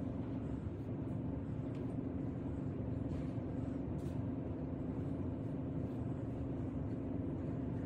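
A steady low hum over a low rumble, with a few faint ticks.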